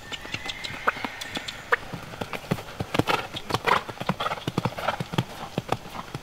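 Hoofbeats of a grey gelding cantering on an arena's sand footing: a quick, uneven run of thuds.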